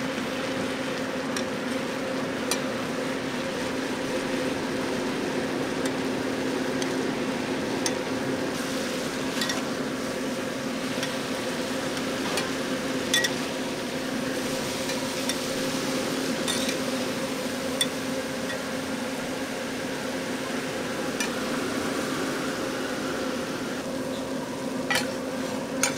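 Taiwanese oyster omelettes sizzling on a large flat iron griddle, with a metal spatula scraping and tapping through them in occasional sharp clicks. A steady low hum runs underneath.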